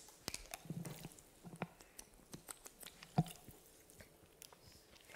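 Faint clicks and rustles of a water bottle being handled and opened, with a few soft gulps as a man drinks from it.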